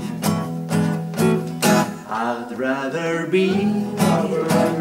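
Blues music without vocals: strummed guitar keeping a steady beat of about two strokes a second, with a sliding melodic line in the middle.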